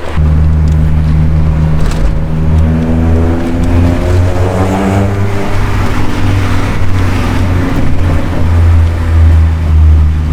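A Renault 5 GT Turbo's naturally aspirated Clio Williams 1.8 16-valve four-cylinder engine, heard on board while the car is driven. Right after a shift at the start, it pulls up through the revs with a rising pitch over a few seconds, then keeps a loud, heavy drone.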